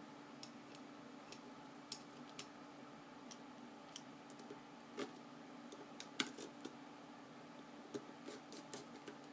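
Irregular small clicks and taps of knife parts being handled and fitted together while reassembling a Benchmade Griptilian folding knife, the loudest a sharp click about six seconds in.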